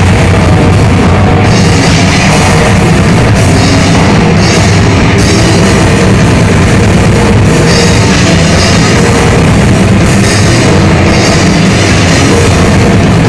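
A live heavy rock band playing at full tilt, with distorted electric guitar and drums. Very loud and unbroken, with the recording pushed close to overload.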